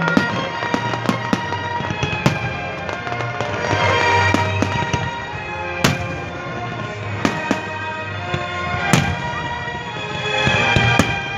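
Aerial fireworks going off in a rapid string of sharp bangs and crackles, the loudest booms about six and nine seconds in, with music playing underneath.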